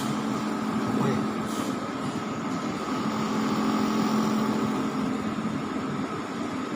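Steady background noise of an indoor waiting hall: an even hiss with a low steady hum.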